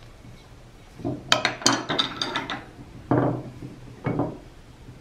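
A quick run of clinks and knocks from hard objects being handled, lasting about a second and a half. Two shorter, duller sounds follow about a second apart.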